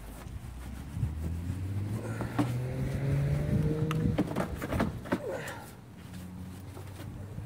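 A vehicle engine accelerating as it goes by, its pitch rising steadily for a few seconds while it grows louder, then fading away. A few sharp clicks and knocks from the wheel-cleaning work sound over it.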